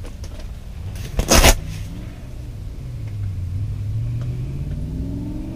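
A brief loud burst of noise about a second in, then a motor's low drone from about three seconds in, slowly rising in pitch as it speeds up.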